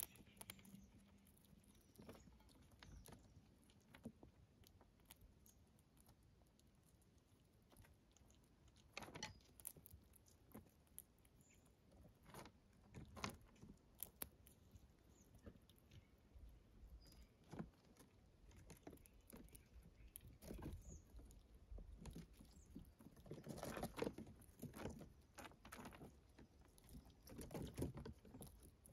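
Faint, irregular crunching and clicking of a squirrel and chipmunks feeding on dried corn kernels, with light pattering of small feet and kernels on the wooden deck; busier near the end.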